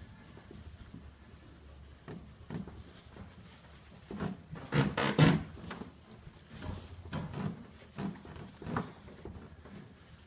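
Microfiber rag rubbing over boat gel coat in a series of wiping strokes, with a louder rub or bump about five seconds in.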